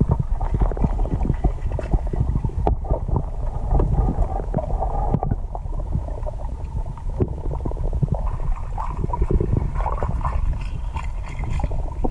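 Underwater noise from a submerged camera in a river: a muffled low rumble of water moving around the camera, with a dense run of small crackles and knocks.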